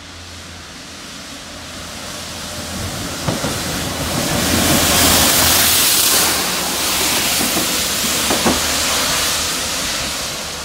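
A lone locomotive running light through a station: its running noise and wheel hiss swell to a peak about halfway through, then fade as it moves away. Two sharp clicks come from the wheels, one before the peak and one after.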